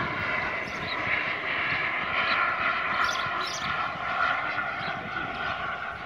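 Radio-controlled scale model MiG-29 jet flying past high overhead: a steady jet whine that slowly grows fainter.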